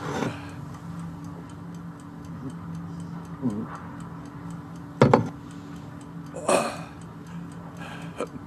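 A clock ticking steadily over a low hum, with a sharp knock about five seconds in and a short rustle a moment later.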